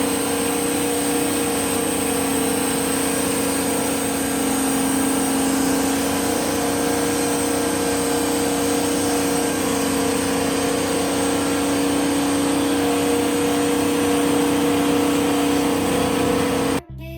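Wood-Mizer LT40 portable sawmill running steadily, its engine and band saw holding a constant pitch, until the sound cuts off abruptly near the end.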